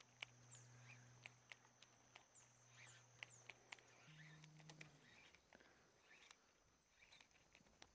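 Near silence: faint outdoor ambience with a few faint high bird chirps falling in pitch in the first half, and scattered faint ticks.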